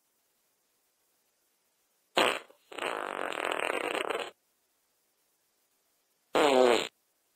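Fart sound effects separated by dead silence: a short sharp fart about two seconds in, running almost straight into a longer fluttering one of about a second and a half, then a short pitched fart near the end whose tone falls.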